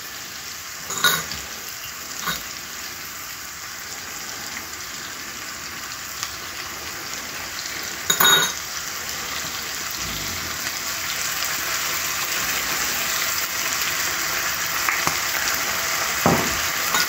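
Sliced peppers, onions and carrots sizzling steadily in hot oil in a non-stick wok, the sizzle growing gradually louder. A few sharp clicks and knocks cut through it, the loudest about eight seconds in, as soy sauce is shaken into the pan.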